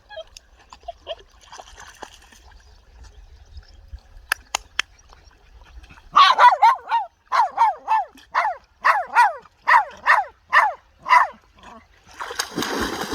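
A dog barking repeatedly, about a dozen barks over five seconds starting about six seconds in, followed near the end by a splash of water.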